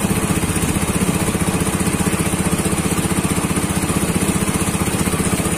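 A small fishing boat's engine running steadily under way, with a fast, even pulsing beat.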